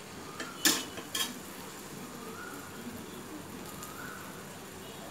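Metal spatula clinking and scraping against a steel pressure cooker a few times in the first second and a half, over the steady sizzle of onions and spices frying in oil.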